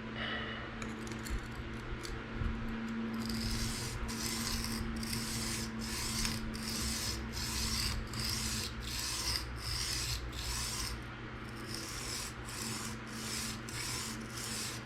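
PM60 steel knife blade being stroked across a 220 grit diamond sharpening stone, a gritty rasping scrape with each pass. It starts with scattered strokes, then settles into an even rhythm of a little under two strokes a second, with a brief pause near the end. The second side of the edge is being ground to raise and flip the burr.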